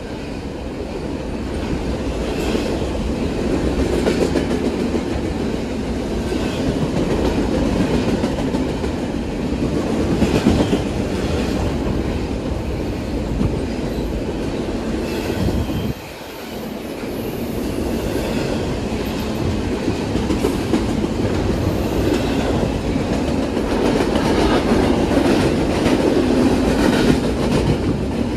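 Double-stack container well cars of a freight train rolling past: a steady rumble of steel wheels on rail with a rhythmic clickety-clack. The noise drops suddenly for a moment about halfway through.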